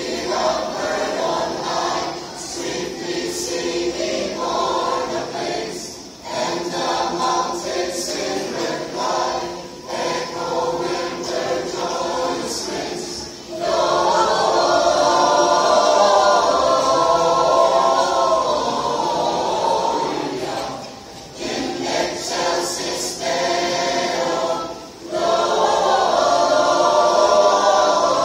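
Mixed choir of men and women singing a Christmas carol in parts, phrase by phrase with short breaks between, swelling louder about halfway through and again near the end.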